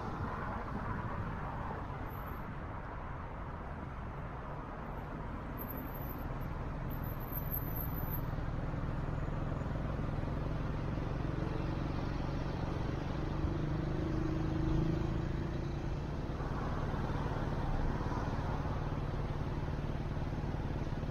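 Car driving along a city street: steady engine and tyre road noise, with a low hum that grows a little louder around the middle.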